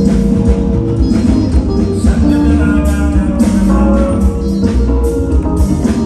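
Band music with drums, deep bass and sustained chords.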